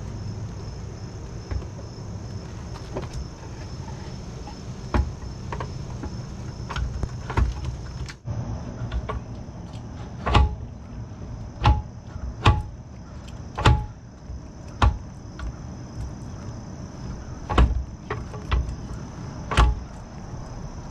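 Sharp knocks and clunks of a Mercury outboard's lower unit being pushed up against the motor's driveshaft housing, which won't seat fully. There are a dozen or so knocks, most of them in the second half, over a steady high insect trill.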